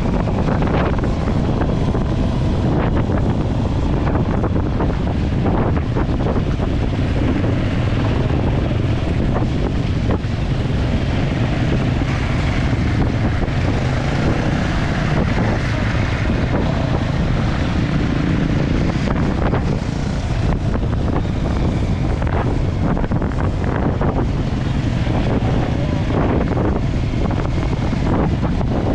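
Steady wind rumble on the microphone from riding, with a vehicle running underneath.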